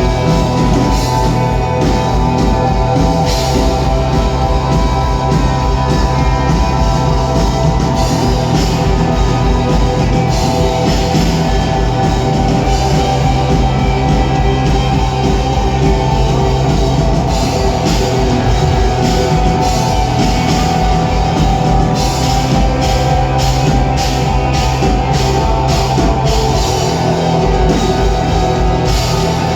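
Rock band playing an instrumental passage live: electric guitar and bass over a drum kit keeping a steady beat, with no singing.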